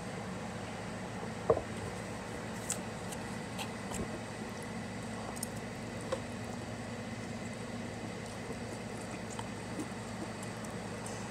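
Quiet eating sounds over a steady background hum. There is one knock about a second and a half in, then scattered small clicks of a metal fork against a plastic food container as ramen noodles are forked into the mouth.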